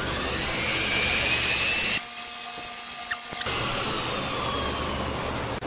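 Flexible-shaft rotary tool with a grinding stone running against the damaged metal on a chainsaw's starter side, grinding it smooth, with a high whine that bends in pitch as it is pressed in. It drops away to a quieter hum for about a second and a half, about two seconds in, then returns.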